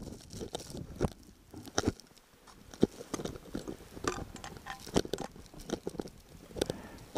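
Climber's ice axe and boots crunching and scraping on snow-covered granite, in sharp irregular strikes roughly once a second, close to the microphone.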